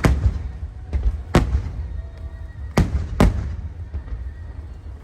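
Aerial fireworks shells bursting: five sharp bangs in about three and a half seconds, the two pairs near the middle the loudest, over a steady low rumble.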